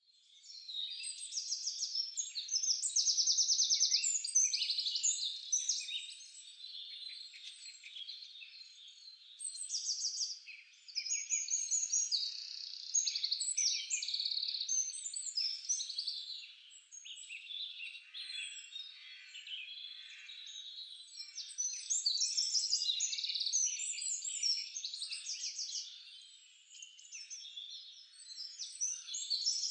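Many small songbirds singing at once, a dense chorus of high chirps and rapid trills that swells and eases several times.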